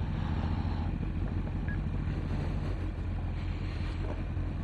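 2009 Honda CBF 1000's inline-four engine running steadily under way.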